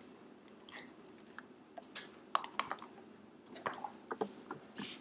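German shepherd puppy mouthing and gnawing a hard Himalayan yak-cheese dog chew: irregular clicks and scrapes of teeth on the rock-hard chew, hesitant rather than steady, over a faint low hum.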